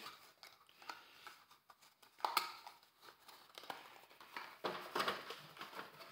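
Headphone packaging being handled: light rustling with scattered taps and clicks, a sharper click about two seconds in, and more rustling near the end.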